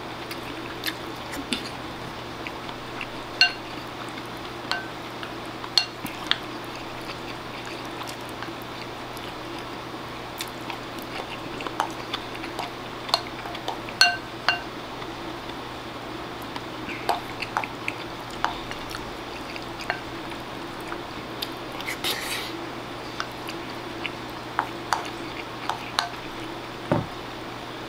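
Wooden spoon scraping and clinking against a ceramic bowl while eating: scattered light clinks, a few of them leaving the bowl ringing briefly, over a steady low hum.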